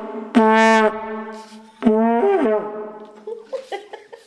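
Vuvuzela blown in two blasts on one steady note, the second bending down in pitch as it breaks off.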